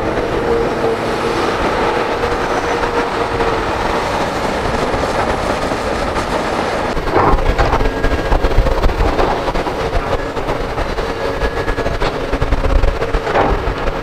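Hydraulic excavators working: diesel engines running with a steady whine. Two sharp knocks come about 7 and 13 seconds in.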